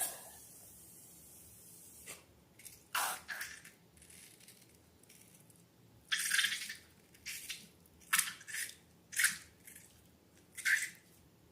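Slime squishing and squelching, a string of short wet sounds at irregular intervals, with a longer squelch about six seconds in.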